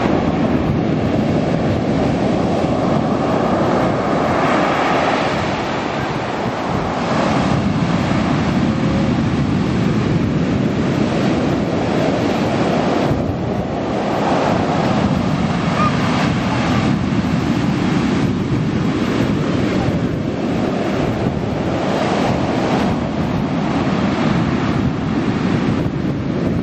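Sea waves breaking and washing up a pebble beach, a continuous rushing wash that swells and eases every several seconds, with wind buffeting the microphone.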